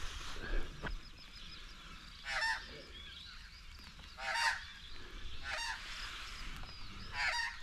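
An animal calling: four short, harsh calls spaced one to two seconds apart, with faint bird chirps in between.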